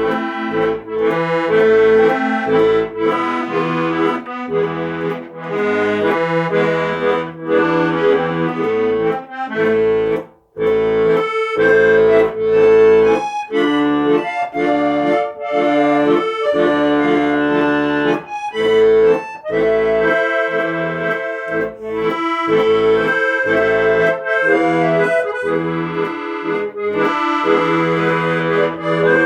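Instrumental music: a melody over sustained held chords, with a brief pause about ten seconds in.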